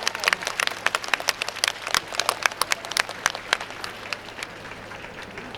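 Audience applauding at the end of a piece: dense clapping that thins out and dies away about four seconds in.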